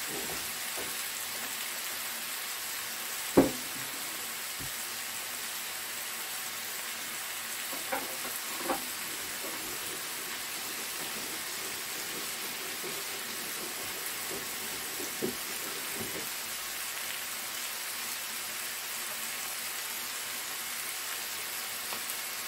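Chicken pieces frying in a little oil in an electric pot: a steady sizzle, with a sharp click about three seconds in and a few fainter ones later.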